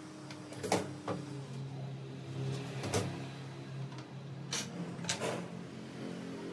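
Half a dozen sharp clicks and knocks of small objects being handled, over a steady low hum.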